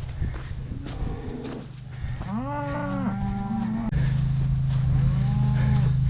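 Cattle mooing while being herded: one long moo a couple of seconds in and a shorter one near the end, over a steady low hum that gets louder about four seconds in.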